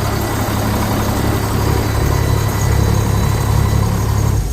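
Small single-axle dump truck's engine idling steadily just after starting: the no-start is cured now that a corroded, high-resistance ECM fuse wire has been repaired.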